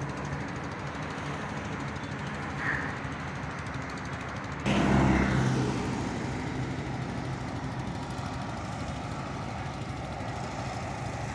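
Steady low hum of a motor engine with background noise, jumping abruptly louder about five seconds in and then easing back to a steady level.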